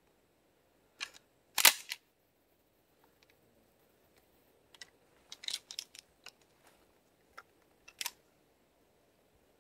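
Metal clicks and clacks from the action of a nickel-plated RIA Carina 12-gauge shotgun being worked by hand to clear a round that failed to fire, called a bad, old round. A loud double clack comes about a second and a half in, then a cluster of smaller clicks around five to six seconds and one more near the end.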